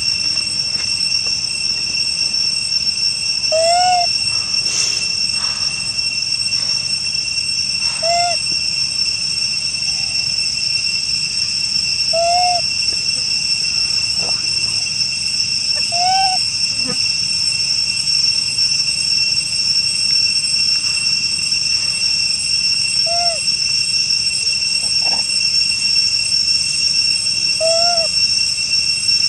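Steady high-pitched drone of forest insects, with a short rising-then-falling call repeating about every four seconds.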